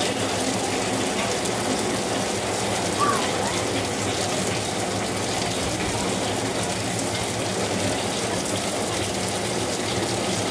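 Heavy rain pouring down steadily onto a wet, flooded street, an even, unbroken hiss of falling water.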